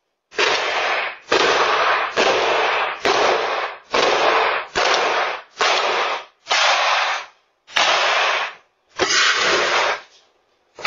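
Someone banging hard on an apartment door, about ten heavy blows roughly a second apart, each a short burst of harsh noise.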